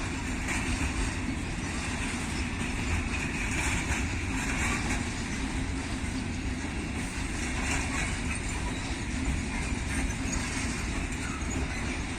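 A train rolling past at steady speed, a continuous rumble of wheels on rail.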